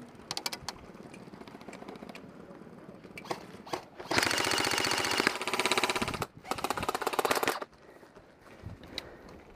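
Airsoft electric rifle firing three rapid full-auto bursts about four seconds in, each a dense rattle of shots lasting about a second, after a few scattered single clicks of airsoft shots.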